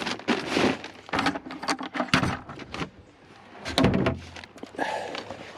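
Irregular knocks, clatters and rattles of feed containers and troughs being handled, with a heavier thud about four seconds in.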